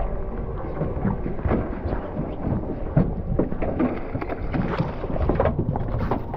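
Wind on the microphone and water splashing around a moving boat at sea: a steady low rumble with crackling spatters throughout.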